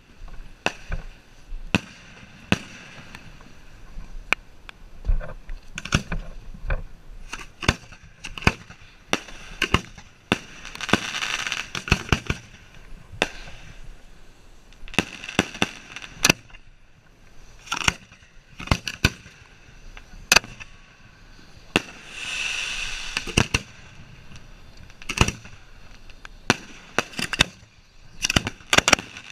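Fireworks shells firing from mortar racks close by, hand-lit one after another: a rapid, irregular series of sharp bangs. Two longer stretches of hissing crackle come about ten seconds in and again about twenty-two seconds in.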